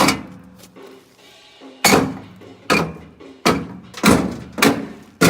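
A series of about seven sharp knocks and bangs at uneven spacing, each with a short ringing tail, from parts of a microwave oven being struck while it is taken apart for scrap.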